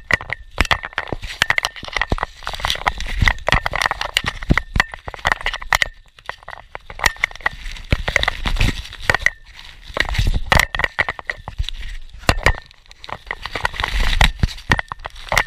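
Plastic bubble wrap crinkling and crackling in quick, irregular sharp snaps as a Boston Terrier bites, chews and tears at it right at the microphone.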